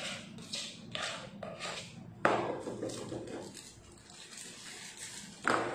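Kitchen utensils and a plastic container being handled on a stainless-steel worktop: a few light clicks, a sharp knock about two seconds in and another near the end.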